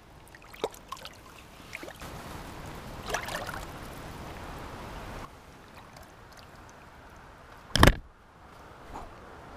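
River water running and trickling, louder for a few seconds in the middle, with small scattered knocks. Near the end there is one short, sharp, loud impact.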